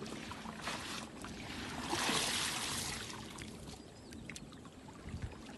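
Water splashing and trickling, swelling to its loudest about two seconds in and then fading, with small knocks and clicks.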